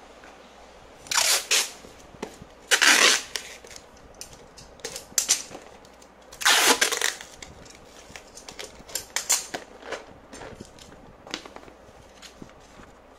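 Clear packing tape being pulled off the roll and stuck around a cardboard box: three loud rasping rips, about a second in, near three seconds and around six and a half seconds, followed by lighter crackles and taps as the tape is smoothed and the box handled.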